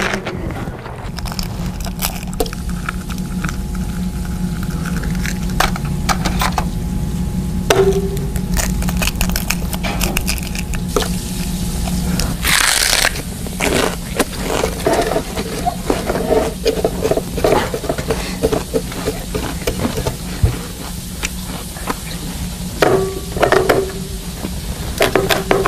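Food cooking on an electric contact grill: sizzling and crackling, with scraping and clatter from the grill and utensils, busiest in the second half. A steady low hum with scattered clicks fills the first half.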